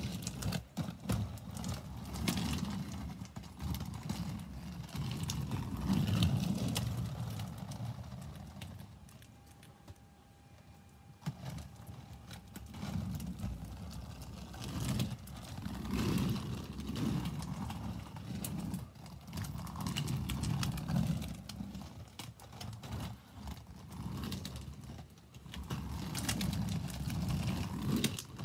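Quad roller skate wheels rolling over rough pebbled pavement: a gritty rumble that swells and fades as the skater moves, with clacks of the skates, quietest for a moment about ten seconds in.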